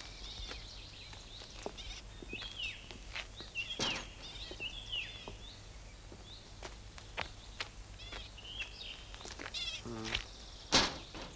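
Small birds chirping in short, high, twittering calls, with scattered clicks and knocks as an old wooden window frame is handled; a sharp knock near the end is the loudest sound.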